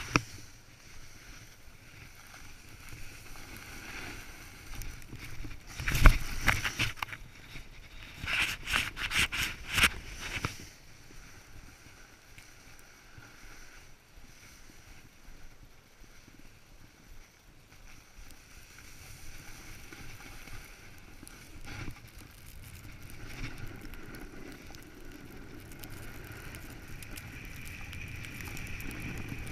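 A snowboard's base and edges scraping and sliding over snow, with wind noise on the microphone. There is a loud scrape or knock about six seconds in and a cluster of them around nine to ten seconds in.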